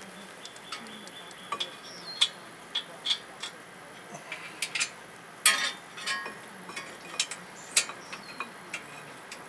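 Irregular metallic clicks and clinks of hand tools and bolts being picked up and handled while fitting a disc brake caliper bracket, with a louder clatter about five and a half seconds in.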